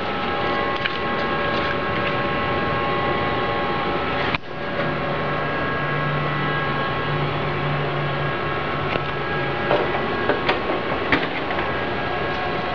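Toshiba e-Studio 4520c colour copier running after a copy job, a steady whir of its fans and motors with several constant tones. The noise dips for a moment about four seconds in, and a low hum joins for a few seconds after that.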